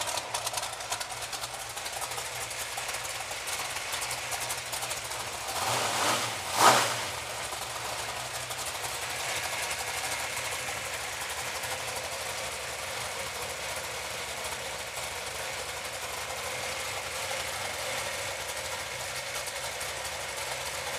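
Small-block Chevy 383 V8 idling steadily on an engine run stand, with one brief louder swell and a sharp burst about six and a half seconds in.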